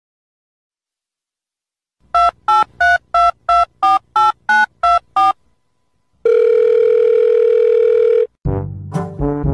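Telephone dialing tones: ten quick keypad beeps, like a number being dialed. After a short pause comes one steady tone about two seconds long, like a phone's ringing tone. Brassy music starts near the end.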